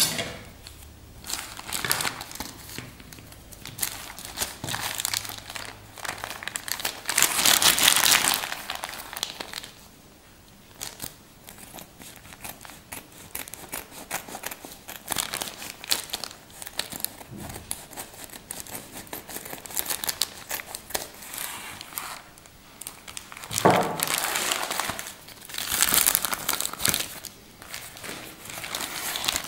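Grey plastic mailing bag crinkling and rustling as it is handled and cut open with scissors, with louder spells of crinkling about a quarter of the way in and again near the end.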